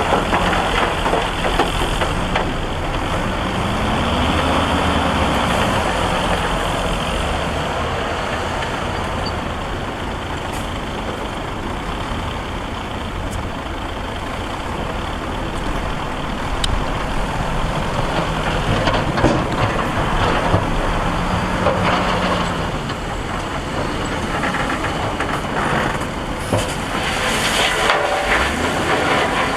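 Heavy diesel engine of earthmoving machinery running under load, its pitch rising and falling twice, with a few sharp metallic clanks.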